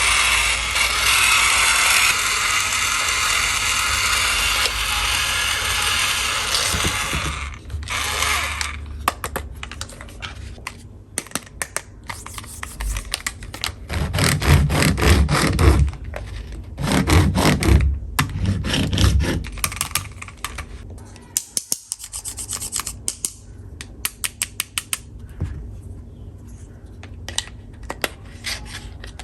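Plastic toy tools being handled and worked. A long scratchy rubbing, like a toy saw or file drawn back and forth, gives way about seven seconds in to scattered sharp plastic clicks and taps. Two louder rattling bursts come in the middle.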